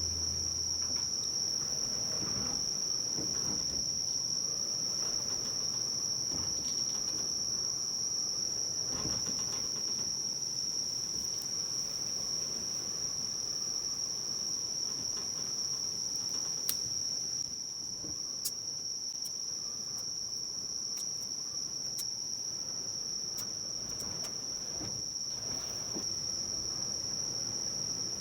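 Insects, crickets or similar, chirring in one steady high-pitched continuous tone, with faint rustling underneath and a couple of sharp ticks in the middle.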